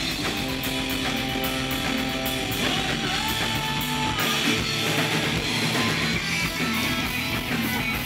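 Live rock band playing an instrumental passage: electric guitar and bass guitar over a drum kit, with a held note that slides up a little before three seconds in.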